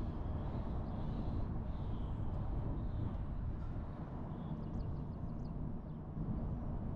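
A car driving slowly along a paved street: a steady low rumble of engine and tyre noise at an even level.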